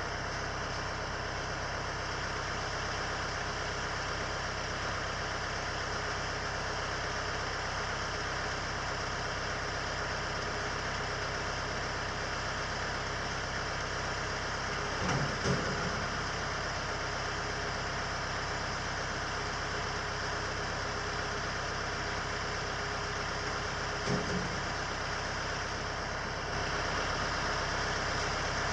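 A steady mechanical drone, like a running motor or fan, with two brief low knocks, one about halfway through and one near the end.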